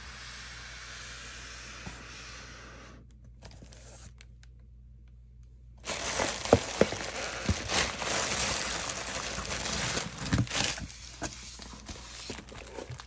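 Plastic air-cushion packaging and cellophane-wrapped planner covers crinkling and crackling as hands unpack a shipping box. It is loudest for about five seconds from midway, with sharp crackles, then softens to lighter rustles. A steady hiss is heard in the first few seconds.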